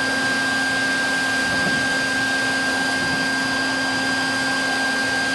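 Vacuum cleaner motor running steadily with a constant whine, its hose drawing the air out from behind a new above-ground pool liner to pull the liner's wrinkles out.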